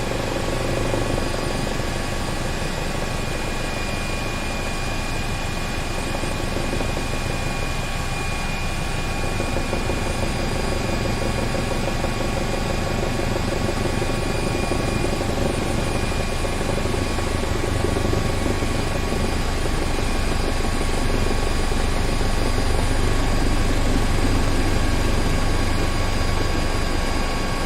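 Helicopter landing: a steady rotor beat under a constant high turbine whine, growing a little louder in the second half.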